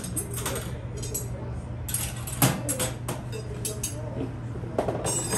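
Metal clinks and knocks, as of tools being handled and set down, over a steady low hum, one sharper knock about halfway through.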